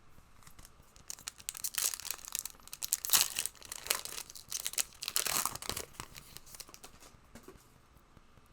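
Foil trading card pack being torn open and its wrapper crinkled, a run of sharp crackling rips for about five seconds that dies away near the end.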